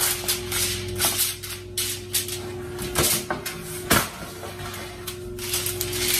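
Aluminium foil crinkling and crackling as it is smoothed and folded around the edges of a metal baking sheet, with a sharper crackle about four seconds in.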